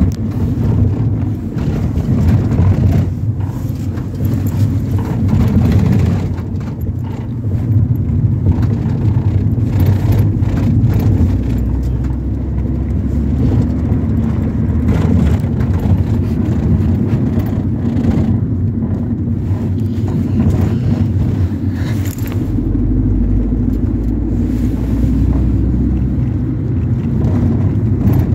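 Ford Transit minibus on the move, heard inside the cabin: a steady low engine and road rumble, with scattered small rattles and knocks.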